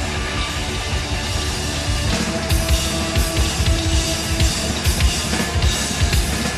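Heavy rock music: distorted electric guitar with a steady drum-kit beat, and no vocals.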